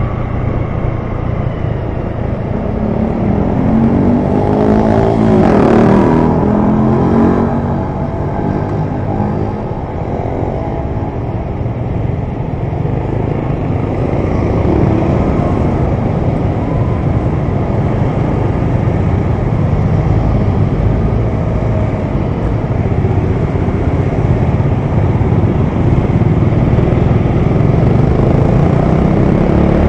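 Motor scooter engine running and road noise while riding through city traffic. It swells louder about four to seven seconds in, as with another vehicle passing close by.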